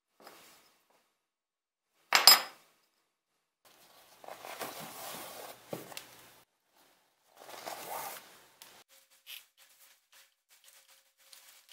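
A spiked metal instep guard clinks sharply against metal or the bench once about two seconds in, followed by rustling of shoelaces being pulled through the guard and the sneaker's eyelets, with light ticks near the end.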